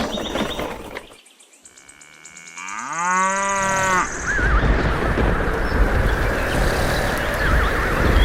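Cow mooing once, a long call that rises in pitch and then holds for about two seconds. About four seconds in it gives way to a louder, steady rushing noise with a low rumble.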